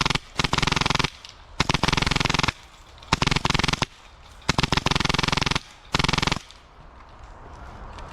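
Airsoft M249 support gun with a Polarstar Jack HPA engine firing full-auto: five short bursts of rapid, evenly spaced shots, separated by brief pauses.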